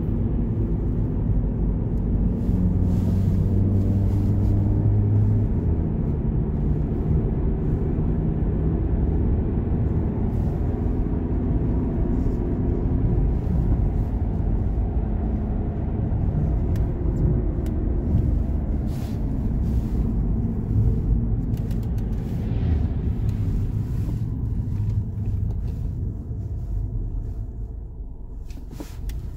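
Stage 2 tuned Audi A3's engine running with a low, steady rumble as the car drives. Its pitch shifts up and down a few times, and it quietens over the last few seconds.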